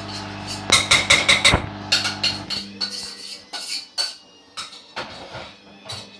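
Hoover Dynamic washing machine trying to spin a badly unbalanced load: the drum knocks and clatters hard, with a loud burst of rapid bangs about a second in. The steady motor hum stops about two and a half seconds in, and the knocking carries on more sparsely.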